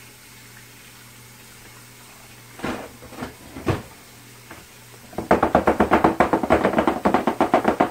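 Metal cake pan full of batter rattled quickly back and forth against a stone countertop, a fast, even clatter of about nine knocks a second lasting about three seconds. A few separate knocks come shortly before it.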